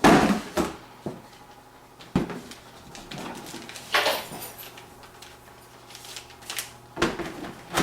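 Motherboard being lifted out of its cardboard box and packaging: scattered knocks and rustles, loudest right at the start, with short clacks about every second or two.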